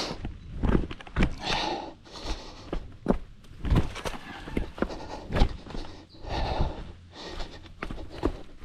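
A runner's footsteps on a rocky trail, irregular thuds and scuffs rather than an even running stride, with heavy breathing between them.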